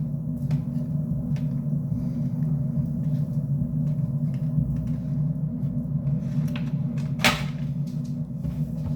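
A steady low hum, with scattered light clicks and knocks and one sharper knock about seven seconds in.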